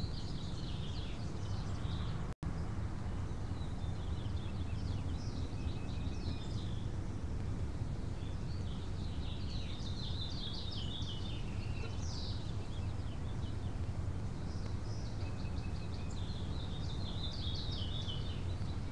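Birds chirping in scattered bursts of short high notes over a steady low outdoor hum. The sound cuts out for an instant about two seconds in.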